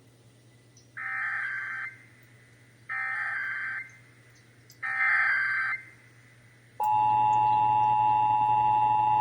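Emergency Alert System SAME header: three short bursts of screechy digital data tones, about a second apart. Near the end the steady two-tone attention signal (853 and 960 Hz) comes on, the alert tone that announces an EAS message.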